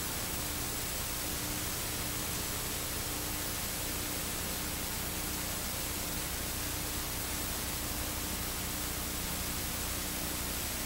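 Steady analog TV static hiss with a faint low hum underneath.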